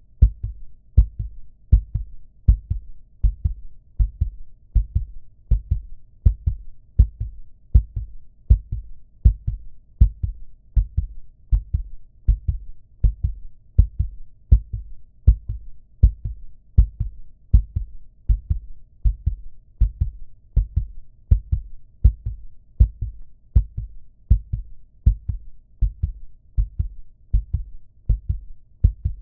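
Human heartbeat beating steadily at about one beat a second. Each beat is a deep double thump, lub-dub.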